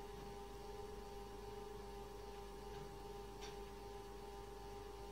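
Steady electrical hum with a faint hiss under it, and one faint click about three and a half seconds in.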